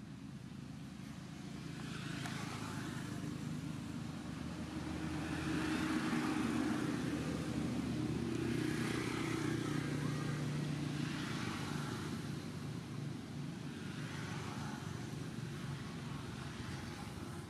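Motor vehicle traffic: a steady low engine hum that builds over the first several seconds and slowly eases, with a hiss that swells and fades every few seconds.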